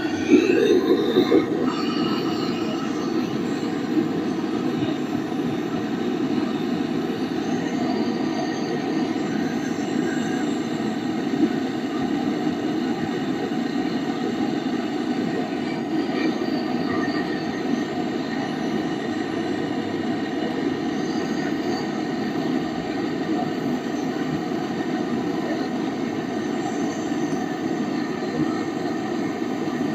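Gas brazing torch flame burning with a steady rushing hiss while a refrigerant pipe joint is brazed during a fridge compressor replacement.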